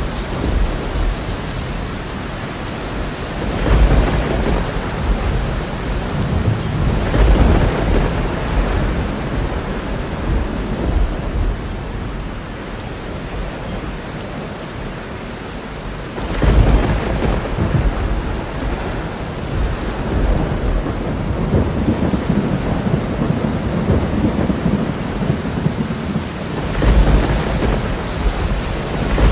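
Thunderstorm: steady heavy rain with rolls of thunder swelling up over it several times, the strongest about four, seven, sixteen and twenty-seven seconds in.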